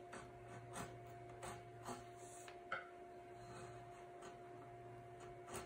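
Faint, scattered scratching strokes of a small hand tool working the edge of a wooden seat blank, over a steady electrical hum.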